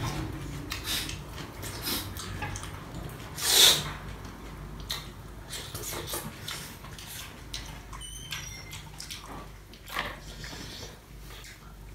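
Close-up eating sounds of a man chewing and smacking his lips, with many small mouth clicks and one louder hiss about three and a half seconds in.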